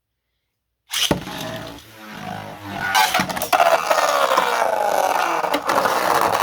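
Two 3D-printed Beyblades are ripped from their launchers about a second in with a loud whir, then spin and scrape around the stadium with a whirring pitch that slowly falls.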